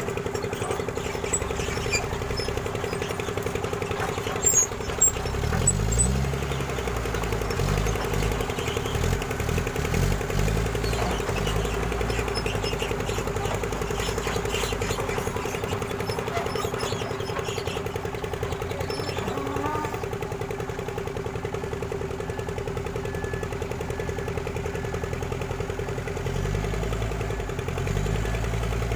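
Excavator's diesel engine running steadily, its low note surging several times as the hydraulics take load. A few short sharp clinks come about five seconds in.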